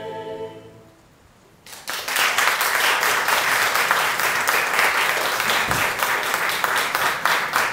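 A choir's final held chord fades away, followed by a brief hush, then audience applause breaks out just under two seconds in and carries on as steady clapping.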